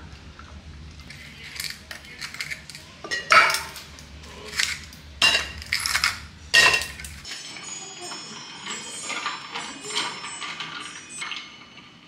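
Ice cubes cracked out of a plastic tray and dropping into a metal tumbler: a run of sharp clinks and knocks, four of them loudest. In the second half, liquid pours into the cup.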